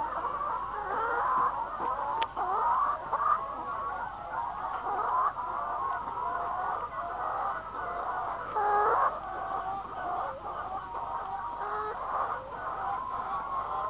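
A flock of laying hens clucking, with many calls overlapping without pause.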